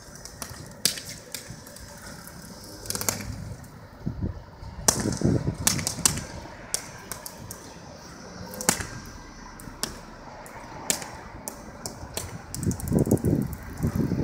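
Electric arcing between a tram's current collector and an ice-coated overhead wire. Irregular sharp cracks and snaps come as the tram tries to draw current to start, and the ice keeps breaking the contact. Stretches of low rumble come in a few times.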